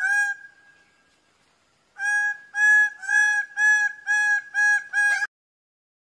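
Male greater bird-of-paradise calling: one loud call at the start, then after a pause a series of about seven loud calls, each on one steady pitch, coming quicker toward the end and cutting off abruptly.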